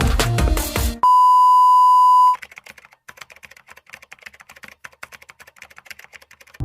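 Music cuts off about a second in and a loud, steady electronic beep at one pitch sounds for just over a second, then stops abruptly. Faint rapid clicking and crackle follows.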